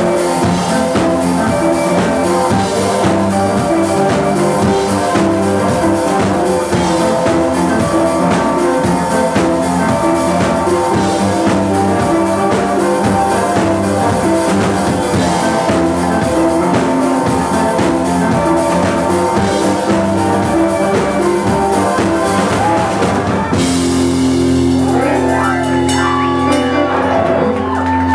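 Live rock band playing an instrumental passage on drums, electric guitars and keyboard. Near the end the drums stop and a held chord rings on, with bending notes over it.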